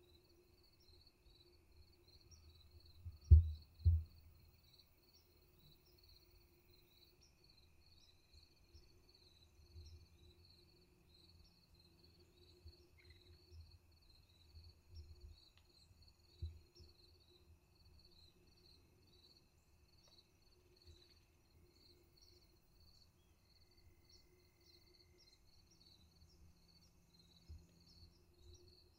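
Field insects chirping in a quick, even pulse over a quiet outdoor background. Two short low thumps about three and four seconds in.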